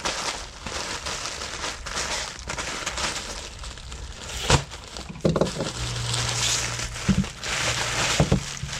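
Parcel packaging being torn open and unwrapped by hand: irregular crinkling and rustling, with a sharp click about halfway through and a few short knocks near the end.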